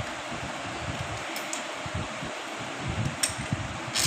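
Steady whirring noise like a fan running, with a few light metallic clicks as a carburetor is unbolted with a spanner and lifted off a motorcycle engine.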